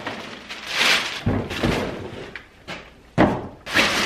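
Crumpled packing paper rustling as it is pulled out of a cardboard shipping box, followed by several thumps of cardboard and parts being handled, the loudest about three seconds in.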